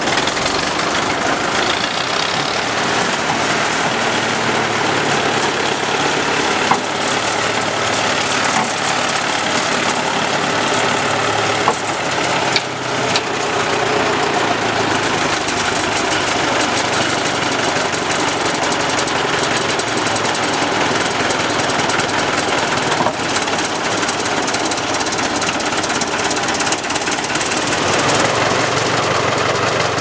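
Road roller's engine running steadily, with a few sharp knocks about 7 and 12 seconds in.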